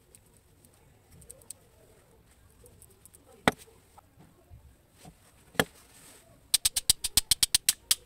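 Small metal clicks and taps as a rusty small DC motor is pried apart with a screwdriver and its parts handled, with two sharp clicks in the middle. Near the end comes a quick run of about a dozen sharp ticks.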